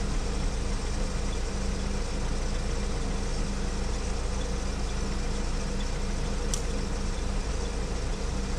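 Steady low mechanical drone with a constant hum, with one faint click about two-thirds of the way through.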